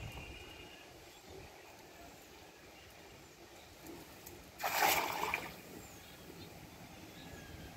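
A hand-thrown cast net landing on pond water: one splash a little past halfway through, lasting under a second and standing well above the quiet background.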